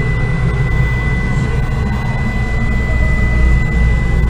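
Laguna iQ CNC router with its spindle running: a steady high whine over a constant low rumble.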